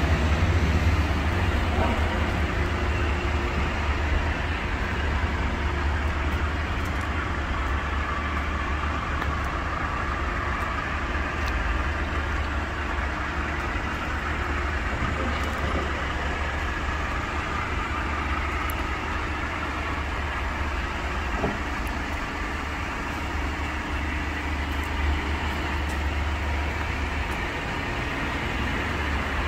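Steady low rumble of vehicle engines and road traffic, with a few faint clicks.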